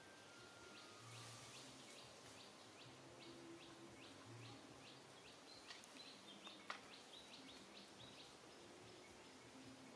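Faint, steady series of short high chirps, about three a second, from an unseen small animal, over quiet outdoor ambience, with one sharp click about two-thirds of the way through.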